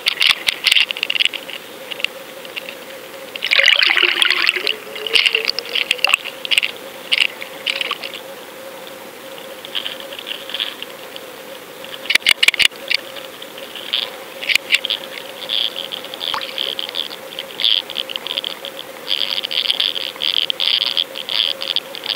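Water heard from underwater: rushing, hissy bursts that come and go irregularly over a faint steady hum, with a few sharp clicks about twelve seconds in.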